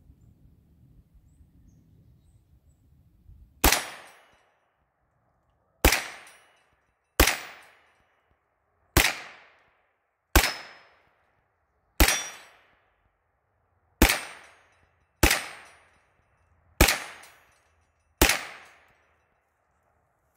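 Ten shots from a Henry Homesteader 9mm semi-automatic carbine, fired at an uneven pace one to two seconds apart, each a sharp crack with a short echoing tail. The steel-cased Monarch ammunition feeds and cycles through all ten rounds without a stoppage.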